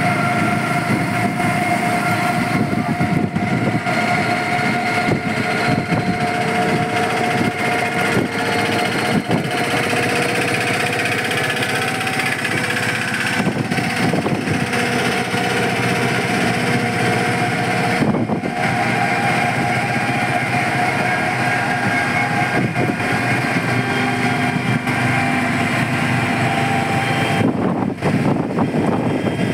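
Steady motor and road noise from a moving auto-rickshaw ride, with a faint whine that holds its pitch and at times slowly rises.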